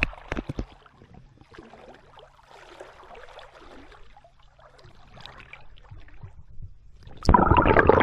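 Water sloshing and gurgling around an inflatable paddle board, with a few sharp knocks at the start and a sudden louder burst of splashing near the end.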